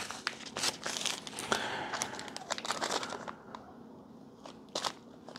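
Plastic packaging crinkling and crackling in the hands as small glossy black zip bags of components are handled. The crinkling is dense for the first three seconds, goes quieter, then comes back in a few sharp crackles near the end.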